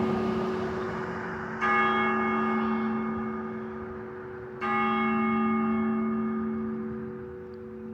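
A church bell tolling the hour: two strikes about three seconds apart, about a second and a half and four and a half seconds in, each ringing on and slowly fading over a lingering low hum.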